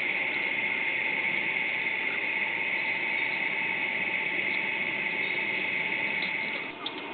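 A steady hissing, rushing noise that cuts off suddenly near the end.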